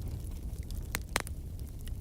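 Wood fire crackling in a fireplace over a steady low rumble. Two sharp pops come about a second in, close together, the second the louder.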